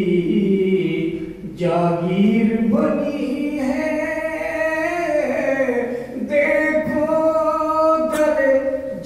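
A man singing a naat, an Urdu devotional poem in praise of the Prophet, unaccompanied into a microphone, in long held melodic phrases with short breaths between them.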